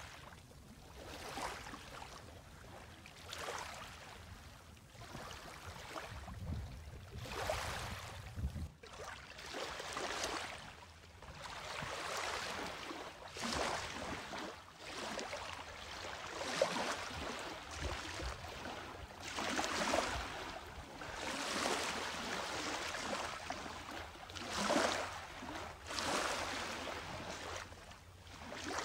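Small waves on a calm sea lapping gently at a shallow pebble-and-coral shore, a soft wash rising and falling every two seconds or so.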